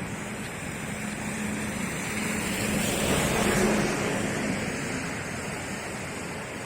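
A motor vehicle passes, swelling and fading about three to four seconds in, over a steady engine hum and a constant rushing noise.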